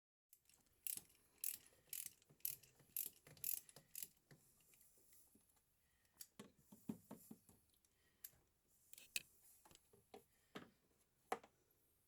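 Ratchet wrench clicking on a spark plug socket, about two sharp clicks a second at first, then slower and more irregular clicks as the wrench is worked back and forth.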